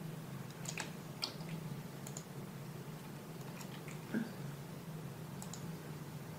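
Computer mouse and keyboard clicks: about ten short, sharp clicks spaced irregularly, the strongest about four seconds in, over a faint steady low hum.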